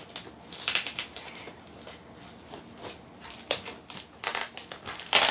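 Parcel packaging handled and unwrapped by hand: crinkling and tearing in short, irregular bursts, the loudest just before the end.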